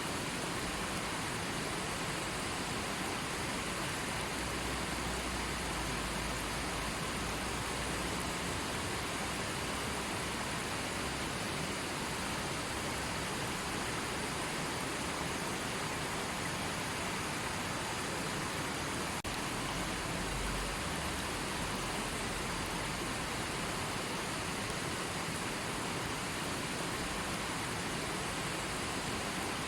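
River water flowing: a steady, even rushing hiss that does not change.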